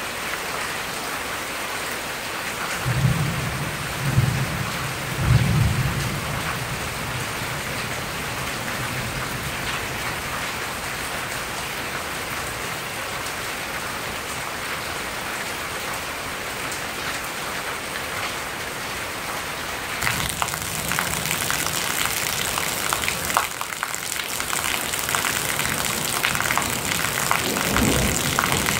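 Steady heavy rain from a thunderstorm, with low rolls of thunder rumbling three times a few seconds in. About two-thirds of the way through, the rain turns louder and more crackling: close-up rain splashing into a sheet of runoff over concrete and grass.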